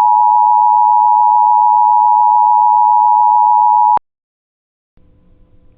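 Emergency Alert System attention signal: a loud, steady two-tone beep just under 1 kHz that cuts off abruptly about four seconds in, followed by a moment of silence and then a faint low hum.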